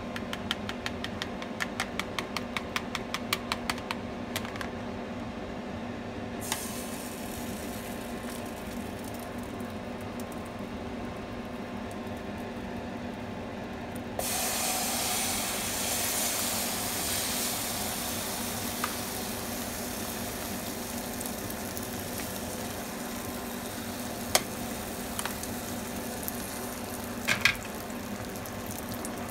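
Chopsticks beating egg mixture in a plastic container, a rapid clicking in the first few seconds. About halfway through, the beaten egg hits a hot oiled grill pan and starts sizzling, the sizzle easing off slowly, with a few chopstick taps near the end over a steady low hum.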